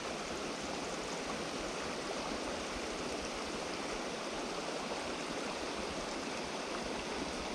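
Steady rush of creek water spilling over a low dam: an even hiss that stays level throughout, with no splashes standing out.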